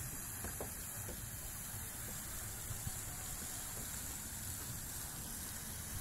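Steady outdoor background noise: an irregular low rumble under a constant high hiss, with no distinct events.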